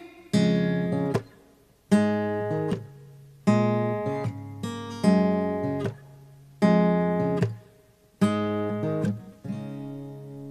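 Steel-string acoustic guitar playing the closing chords of a song: a chord strummed about every second and a half, each left to ring and fade, with brief silent gaps between some. Near the end a last chord is left ringing out.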